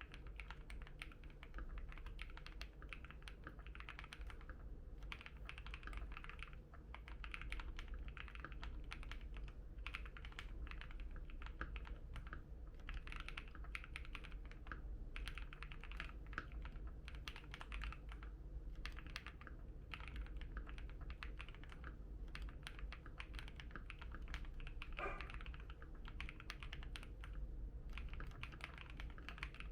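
Continuous typing on a Keychron Q1 mechanical keyboard with an FR4 plate, fitted with KTT Strawberry linear switches: a steady stream of key clicks with brief pauses.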